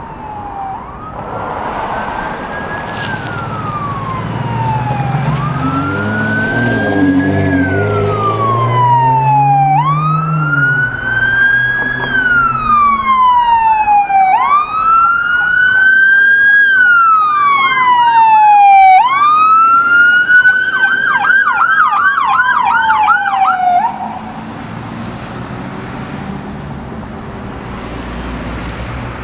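Police siren wailing, each cycle a quick rise and a slower fall about every four and a half seconds, growing louder as it comes closer. About twenty seconds in, a rapid yelp joins the wail. Both cut off suddenly near the end, leaving vehicle engine and road noise.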